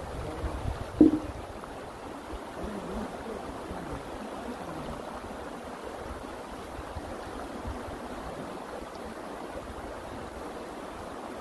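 Steady rush of a flowing mountain stream, with wind buffeting the microphone at first and a short loud knock about a second in.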